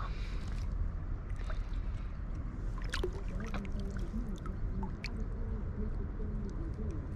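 Arkansas River flowing steadily, a constant rush of moving water, with a few short sharp clicks or splashes about three and five seconds in.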